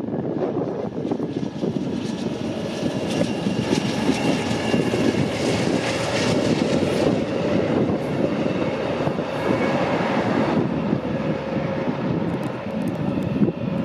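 Amtrak passenger train of diesel locomotives and double-deck Superliner cars passing and gaining speed, a steady loud rumble of engines and steel wheels on rail as it rolls over a short trestle.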